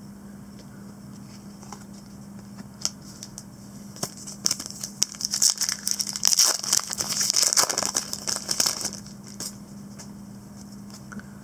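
Foil trading-card pack wrapper crinkling and tearing as it is pulled open by hand. A few clicks come first, then a dense run of crackles from about halfway through that lasts several seconds before stopping.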